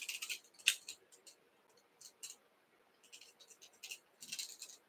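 Faint, short scratching and rustling sounds, several scattered bursts, from fingers handling tying thread and ostrich herl at a hook clamped in a fly-tying vise.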